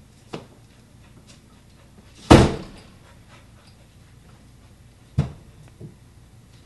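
A few knocks: a light one near the start, a loud thump with a short ringing tail about two seconds in, then a sharper knock about five seconds in.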